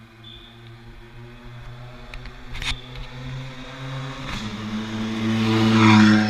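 Ford Fiesta rally car engine running at low, steady revs as it rolls past close by, growing louder to a peak near the end. A couple of sharp clicks about two and a half and four seconds in.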